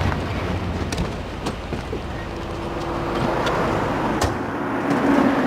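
Car and street traffic running steadily, with a few short sharp knocks.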